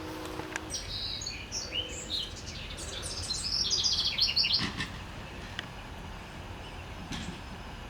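A songbird singing a quick series of high chirps and trills, loudest about three to four seconds in, then a few scattered chirps.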